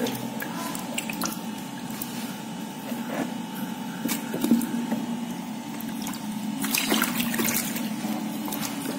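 Water splashing and sloshing as a hand stirs and lifts live fish in a plastic-lined container of water. There are scattered small splashes and drips, with a busier run of splashing about seven seconds in.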